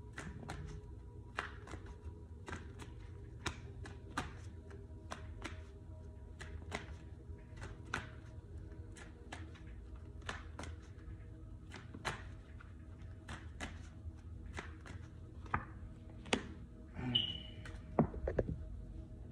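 A deck of tarot cards being shuffled by hand: a run of sharp, irregular taps and clicks, about two to three a second, with a few louder knocks near the end.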